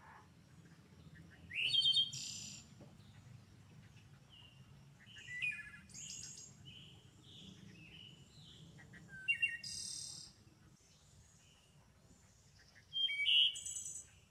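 Birds chirping: four short bursts of high chirps and rising whistled notes, about every four seconds, over a faint steady low hum.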